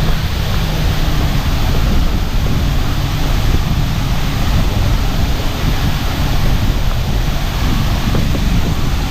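Wind buffeting the microphone over a steady rush of water, with no pauses or single strikes.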